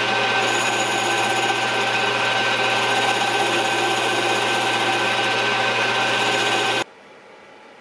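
Combination mill-lathe running with the spindle and chuck turning, a steady mechanical hum with a constant whine, while a light turning pass of a few thousandths is taken on a back plate's register. The sound cuts off suddenly about seven seconds in as the machine is switched off.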